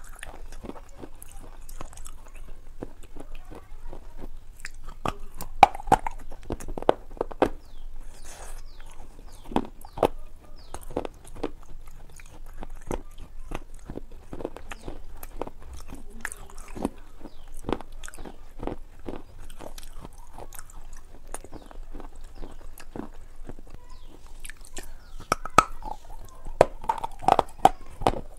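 Close-miked eating: crunchy bites and chewing with crackling mouth clicks, the loudest bites coming in clusters a few seconds in and again near the end.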